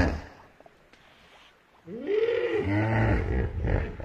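Hippopotamus grunting calls: one deep call fades out just after the start, then after a short quiet a string of deep, rumbling grunts begins about two seconds in.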